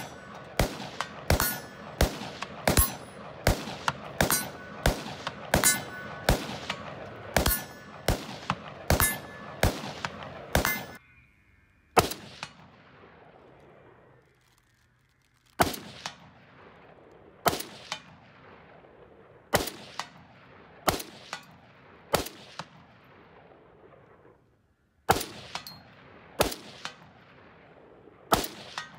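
Gunshots: a quick run of about fifteen shots, roughly one every 0.7 seconds, many followed by a short metallic ring. After a pause of a few seconds, a rifle fires slower single shots, about one every second or so, with a short break near the end.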